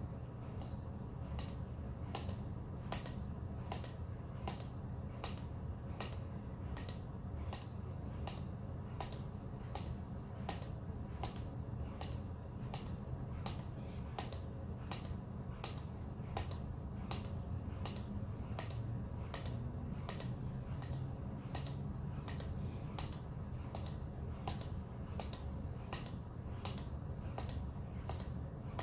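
Electronic push-up counter giving a short click-beep each time the chest reaches it during rapid push-ups, in a quick, even rhythm. A steady low hum from the room lies underneath.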